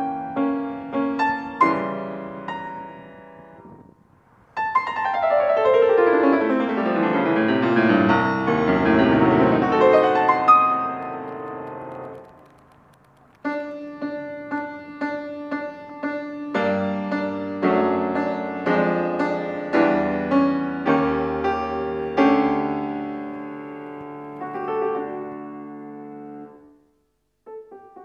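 Background piano music: phrases of struck notes, with a long rush of fast notes from about five to twelve seconds in, and short breaks between phrases.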